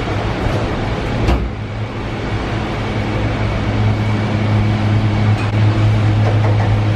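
Steady low mechanical hum of the Ngong Ping 360 cable car's machinery, heard from inside a gondola, with one sharp knock about a second in.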